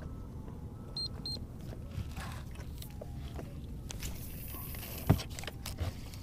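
Three short, high electronic beeps, one at the start and a quick pair about a second in, over a steady low rumble. Scattered handling clicks follow, and there is a sharp knock about five seconds in.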